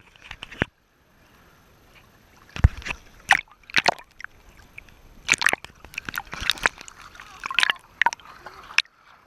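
Sea water sloshing and splashing in short, irregular splashes, with a quieter stretch about a second in.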